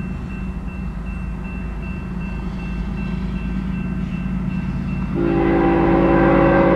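Railroad crossing bell ringing in steady, rapid strokes over the low rumble of an approaching freight train, which grows louder. About five seconds in, the lead locomotive's horn starts sounding a chord of several notes for the crossing. The lead unit is GE ES44C4 BNSF 4261.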